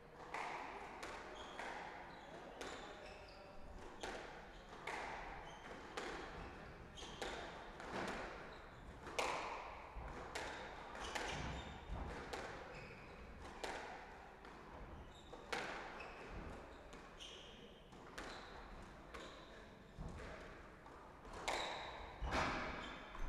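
Squash rally: the ball struck by rackets and smacking off the walls, a string of sharp, echoing impacts about once a second.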